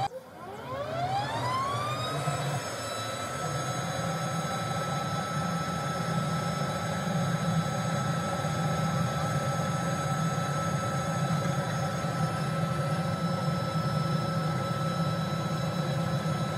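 A workshop machine's electric motor spinning up, its whine rising in pitch over about two seconds and then running at a steady high pitch over a low hum.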